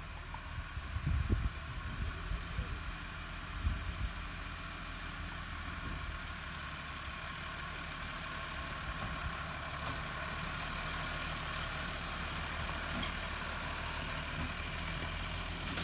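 Tractor engine running steadily under load as it tows a heavy wagon, with a low, even drone. A few low thumps come in the first few seconds.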